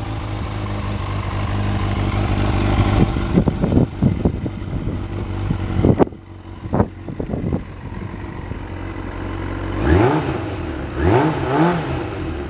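Kawasaki ZRX400-II inline-four running through a Yoshimura titanium full exhaust: a steady idle, then short throttle blips, and near the end several revs that rise and fall back to idle.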